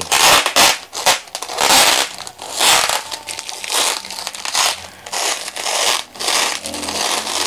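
Plastic parcel wrapping and packing tape being crinkled and torn open by hand, in a run of irregular rustling bursts.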